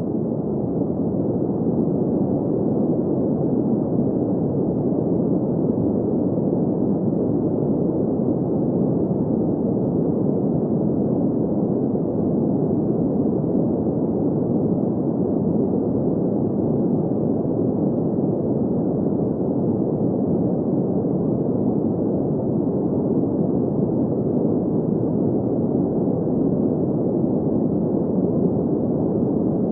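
Steady synthetic green noise: an even rushing hiss with its weight in the low and middle range and nothing above the upper mids, unchanging throughout.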